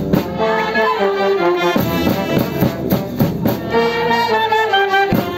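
Live brass band playing a lively traditional folk tune over a steady drum beat, with trombone and a large bass horn among the players.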